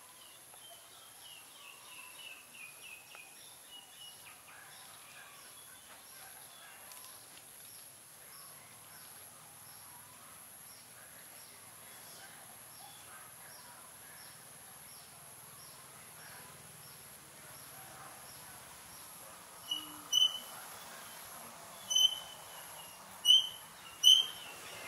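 Garden ambience with small birds chirping and a faint steady high whine. Near the end come four sharp, loud high-pitched chirps.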